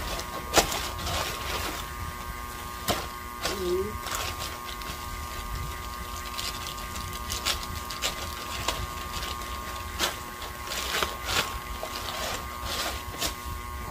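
Plastic crinkling and rustling in irregular bursts as a black plastic courier pouch is handled and torn open, over a steady electrical hum.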